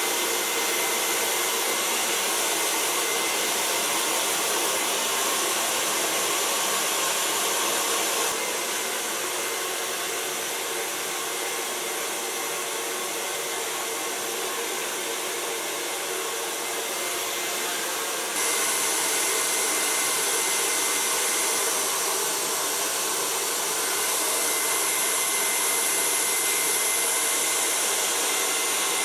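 Kyone handheld hair dryer running continuously while blow-drying hair: a steady rush of air with a faint high whine, a little quieter for about ten seconds in the middle before coming back up.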